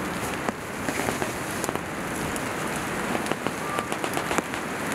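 Nylon hammock fabric and an inflatable camping pillow rustling and crinkling as a person shifts and adjusts the pillow in the hammock: a dense crackle with many sharp ticks.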